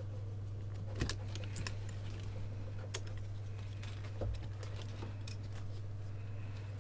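Sharp clicks and light rattles of a soundbar's circuit board and plastic connectors being handled as the board is unplugged and lifted out of its plastic housing, over a steady low hum. The loudest clicks come about a second in and about three seconds in, with a duller knock a little after four seconds.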